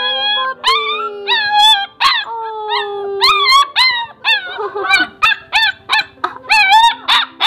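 Puppy crying loudly for attention: a quick string of short, high-pitched yelping cries, about three a second, some drawn out longer and falling in pitch.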